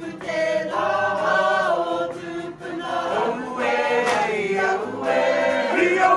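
A group of women singing a Māori action song (waiata-a-ringa) together in unison, holding long notes in phrases.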